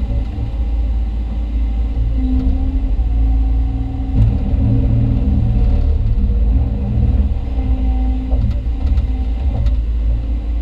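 Hyundai Robex 220LC-9A excavator's diesel engine and hydraulics running in a steady low rumble, heard from inside the cab. The load on the engine rises and falls as the arm and bucket work to compact the trench.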